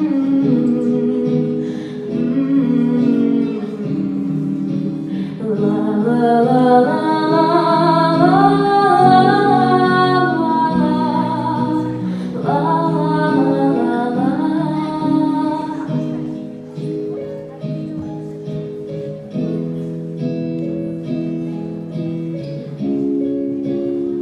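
Acoustic guitar instrumental passage between verses of a slow song, with a wordless sung melody rising over the chords from about five to sixteen seconds in, then guitar chords alone again.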